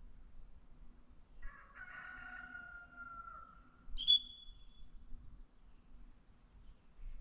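A rooster crows once, a call of about two seconds that falls slightly in pitch. About four seconds in comes the loudest sound, one short, sharp blast of a dog-training whistle, the single toot that signals a retriever to sit in a double-T drill.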